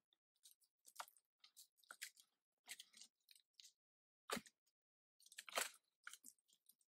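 Faint scattered crunches and knocks of a long wooden stick poking and scraping at loose rock and bark overhead, with two louder crunches about four and a half and five and a half seconds in.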